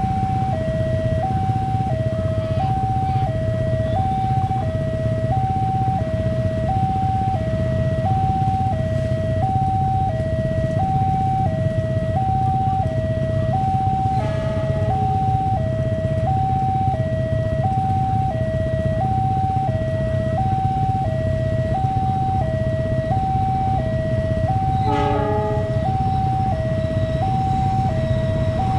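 Railway level-crossing warning alarm sounding continuously: an electronic two-tone signal switching between a higher and a lower pitch about every half second, warning that a train is approaching. Under it runs a steady low rumble.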